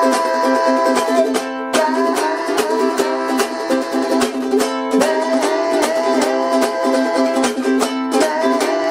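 Ukulele strummed hard in a fast, straight 16th-note rhythm on Am, G7 and C chords, with a man singing loudly over it. The strumming stops briefly three times.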